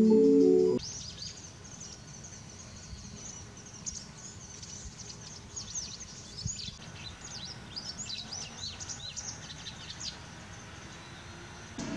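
A short tune on a mallet instrument cuts off about a second in. Then small birds chirp and twitter in quick, high calls over faint background noise, and the calls stop shortly before the end.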